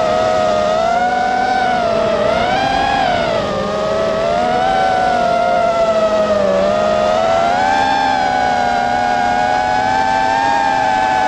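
Quadcopter drone's motors and propellers whining steadily, the pitch sliding up and down continuously as the throttle changes.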